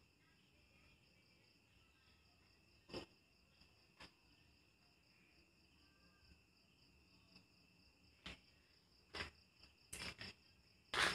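Crickets chirping steadily, with a scattering of short knocks and clicks, coming more often and louder in the last few seconds.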